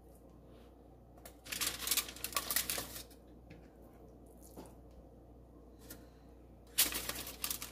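Aluminium foil on a baking sheet crinkling as raw fish fillets are laid onto it and handled, in two spells of crackly rustling: one about a second and a half in, the other starting near the end.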